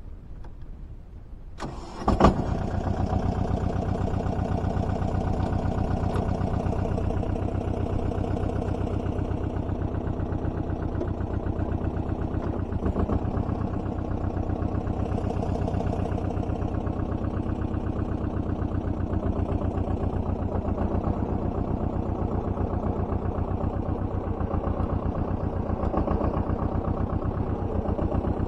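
Goldoni compact tractor's engine starting: it catches with a sharp burst about two seconds in, then runs steadily with an even firing rhythm.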